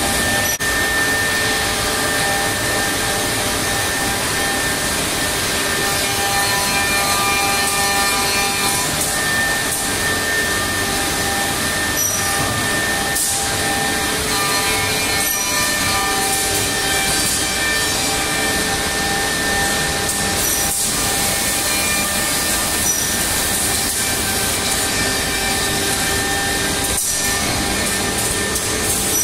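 Homag edgebanding machine running steadily: a constant machine noise with several steady motor whines on top.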